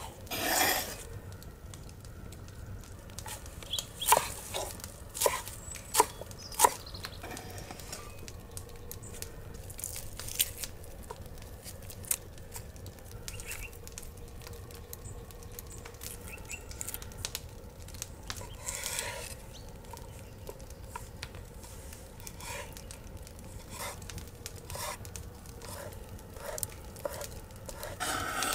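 Knife work on a wooden cutting board: scattered sharp knocks of a cleaver, clustered about four to seven seconds in, between short rustles and scrapes of chopped mint and garlic being handled.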